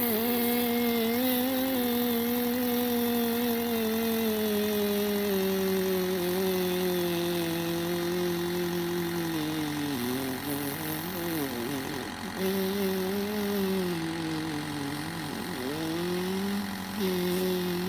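A long, buzzing fart noise made on purpose, held steady while its pitch slowly sinks. About ten seconds in, it wobbles and breaks up, then picks up again, with one more wobble near the end.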